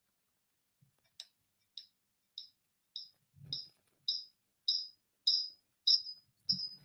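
Electronic beeping: short high-pitched beeps, a little under two a second, starting about a second in and growing steadily louder, like an escalating alarm or timer.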